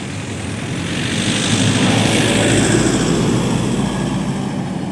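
Motor vehicle passing close by; its sound swells to a peak about halfway through, then eases off.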